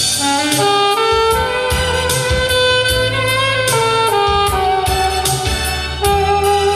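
Saxophone playing a slow, held-note melody of a Korean popular song over a backing track with a steady drum beat.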